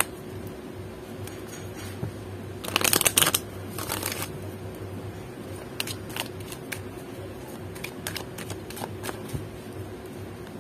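A deck of oracle cards being shuffled by hand. A dense flurry of riffling comes about three seconds in, with a shorter one just after, then sparse taps and slides as the deck is handled. A faint steady hum lies underneath.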